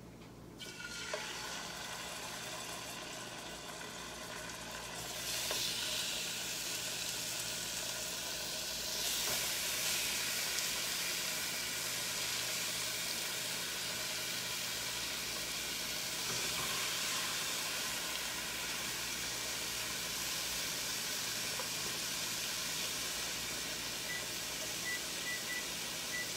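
Raw boneless chicken thighs sizzling as they go into hot olive oil in a skillet to be seared. The sizzle starts about a second in and gets louder about five and nine seconds in as more pieces are added, then holds steady.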